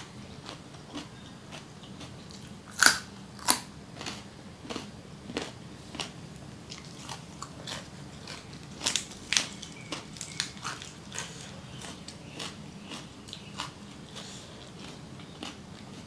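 Close-miked biting and chewing of crunchy raw vegetables: a carrot stick and crisp lettuce. Sharp crunches come about three seconds in and again around nine seconds, with softer chewing crunches between.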